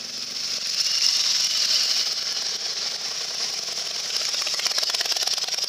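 Motorcycles riding through a shallow ford: a hiss of water spray thrown up by the wheels, swelling about a second in, over the rapid exhaust beat of a motorcycle engine, which grows more prominent near the end.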